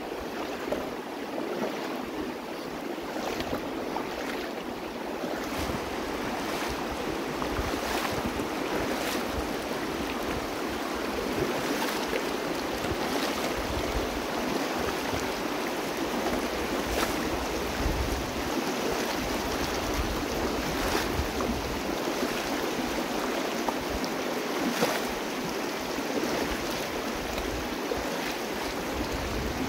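Shallow river rushing steadily over rocks and riffles, with a few brief sharp splashes and occasional low wind rumble on the microphone.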